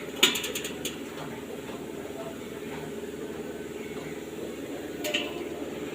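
A blower fan motor running with a steady hum. A quick rattle of sharp metal clicks comes just after the start, and a single knock about five seconds in.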